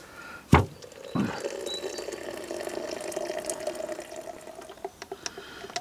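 A knock, then water poured from a plastic bottle into a metal cooking pot, a steady splashing fill from about a second in until near the end.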